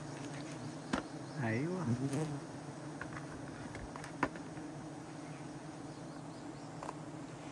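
Wild honeybees buzzing as a steady swarm hum, with a louder wavering buzz sweeping past about a second and a half in and a few faint clicks.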